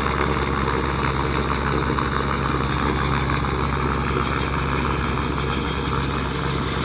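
Helicopter flying by, a steady drone of engine and rotor.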